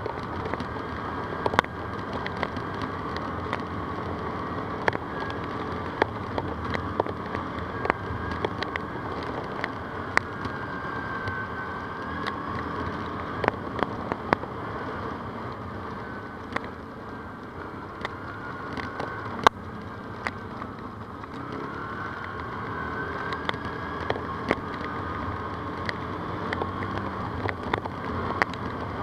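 ATV engine running under way, its pitch drifting up and down, with frequent sharp clicks and knocks scattered through. The loudest single knock comes about two-thirds of the way in.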